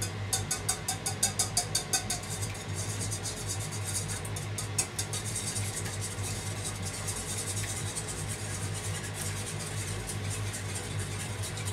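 Metal wire whisk beating eggs in a stainless steel bowl: quick, even clinks of the whisk against the bowl, loudest and most regular in the first two seconds, then a denser, softer clatter. A steady low hum runs underneath.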